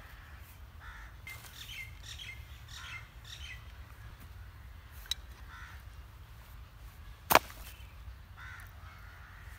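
Birds calling: a quick run of short repeated calls in the first few seconds, then scattered calls. A sharp click comes a little after five seconds, and a single much louder sharp snap about seven seconds in.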